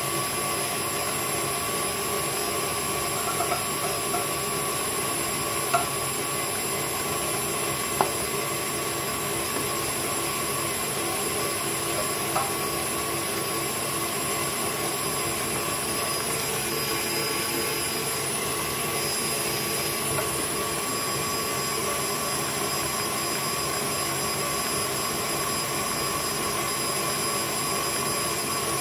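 KitchenAid Artisan stand mixer running steadily at medium speed, its wire whisk beating egg whites into meringue in the stainless steel bowl, a constant motor whine. A few sharp clicks stand out in the first half.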